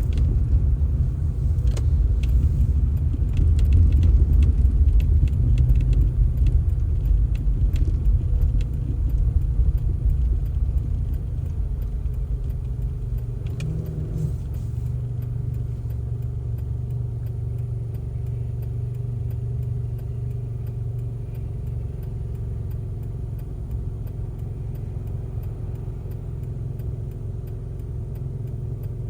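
An engine running steadily with a deep rumble, louder for the first ten seconds and then easing to a lower, even level. Light rattling clicks come and go in the first several seconds and once more about halfway through.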